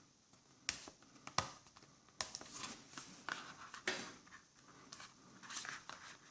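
Hands prying and tearing at sealed packaging without a knife: a few sharp clicks about a second in, then scattered crinkling and scratching.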